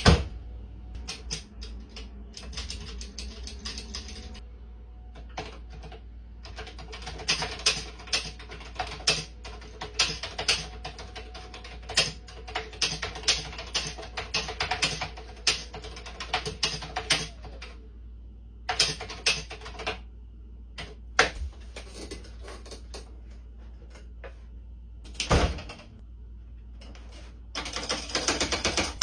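Typing on vintage home-computer keyboards: runs of rapid clacking keystrokes broken by short pauses, with one heavier knock near the end. A faint steady hum lies underneath.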